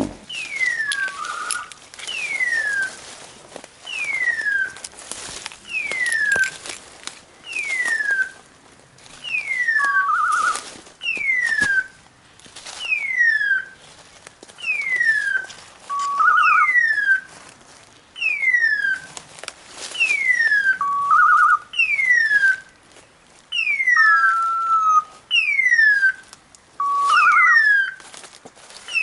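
Dog beeper collar giving its point signal: a falling electronic screech repeating about every second and a half, with a short rising beep every few seconds, the sign that the pointing dog is standing still on point.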